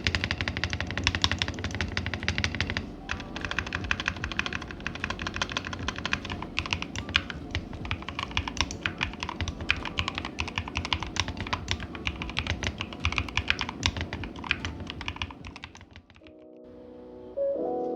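Fast continuous typing on a Mucai MK61 mechanical keyboard with Outemu switches, a dense run of key clicks that thins out and stops about 16 seconds in. Piano music starts right after.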